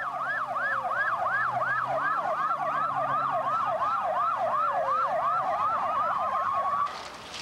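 Police vehicle sirens: one yelping fast, about three rising sweeps a second, over a second siren wailing slowly up and down, with a vehicle engine running underneath. The sirens cut off suddenly about seven seconds in.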